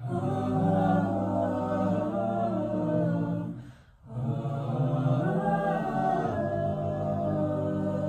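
Mixed-voice a cappella group singing held chords in several parts. The singing stops for a moment about halfway through and comes back in.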